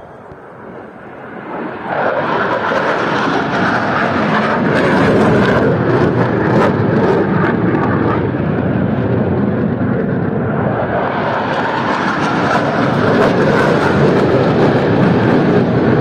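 F-16 fighter jets flying low overhead: a loud jet roar that builds sharply about two seconds in, eases a little around the middle and swells again.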